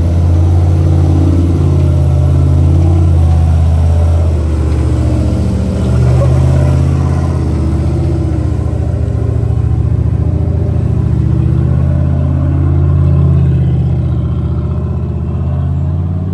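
Rock-crawling Jeep's engine running at low revs as it crawls up slickrock, a steady low note that swells slightly twice with small throttle changes.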